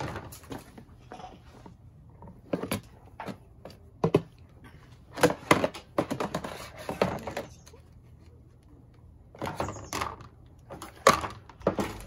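Hard plastic parts of a toy play-kitchen sink being handled and fitted together: the basin, faucet unit and tray knocking and clattering in irregular thunks, with quiet gaps between.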